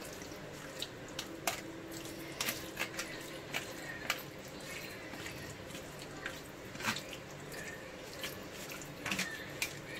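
Hand mixing raw chicken pieces into a yogurt and spice marinade in a plastic tray: irregular wet squelches and light clicks.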